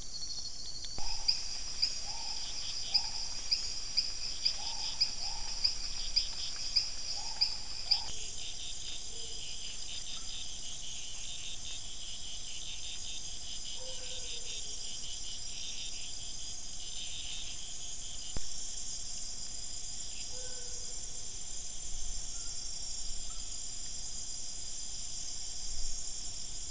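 Night chorus of crickets and other insects: a steady, high-pitched trilling that shifts in pitch and pattern about eight seconds in. For the first eight seconds, short lower calls repeat about twice a second over it, with a few faint single notes later.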